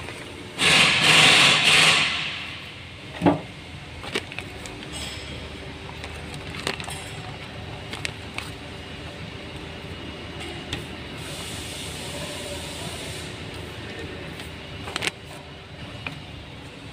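Plastic bag crinkling loudly for about a second and a half as new fuel filter kit parts are taken out, then a few light clicks and taps of small parts being set down on the bench, over a steady low hum.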